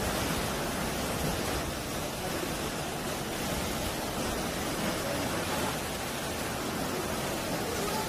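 Sea waves washing over low coastal rocks, a steady rush of surf and foam without distinct crashes.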